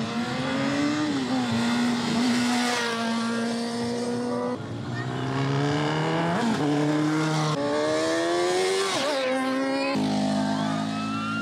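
Superbike engines revving hard as motorcycles accelerate along the track, the pitch climbing and dropping back several times as they shift up through the gears. Near the end the sound changes abruptly to a steadier engine note.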